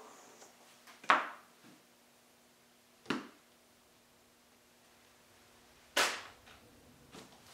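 Three sharp slaps, each dying away quickly, about two and three seconds apart: wet clay being handled on the work table as the trimmed scrap is peeled away from the slab.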